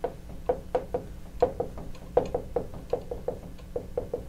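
Dry-erase marker writing on a whiteboard: an uneven run of short taps as the marker strokes out a minus sign and letters.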